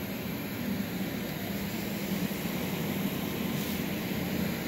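Running CNC router equipment: a steady machine drone with a low hum.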